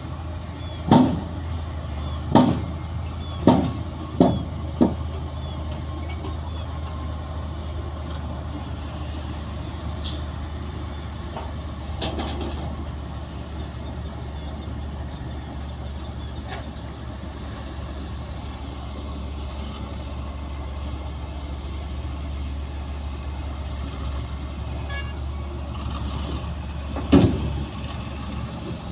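Heavy diesel engines of a bulldozer and dump truck running steadily, with five sharp metallic bangs about a second apart in the first five seconds and one more loud bang near the end.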